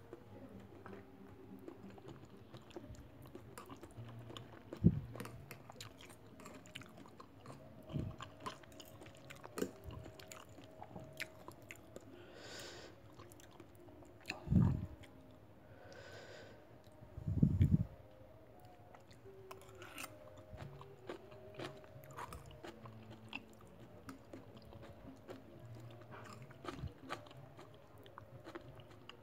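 Close-up sounds of a person eating: chewing, with small clinks and scrapes of a metal fork and spoon against the plate. A few dull thumps stand out, about 5 seconds in and twice more near the middle.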